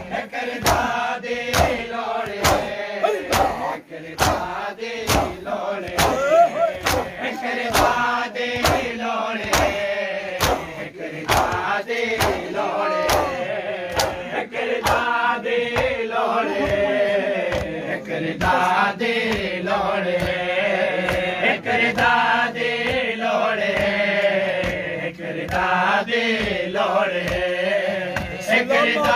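Men chanting a noha, a Shia lament, in unison, over a steady beat of hand-on-chest slaps (matam) about twice a second.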